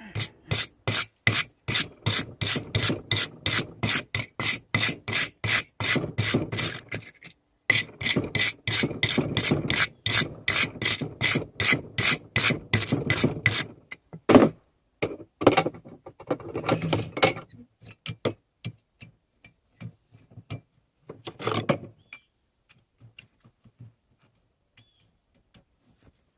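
Hand hammer striking a hot railroad spike on an anvil, about three sharp blows a second in two long runs broken by a short pause. About 14 s in the rhythm stops, giving way to a few scattered strikes and then faint taps.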